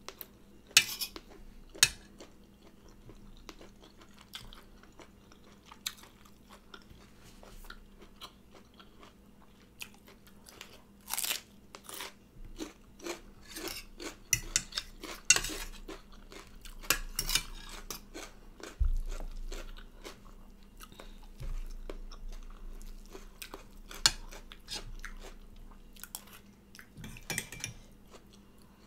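Close-up chewing and crunching of stir-fried chicken gizzards with rice, with irregular sharp clicks and scrapes of a fork and spoon against the plate.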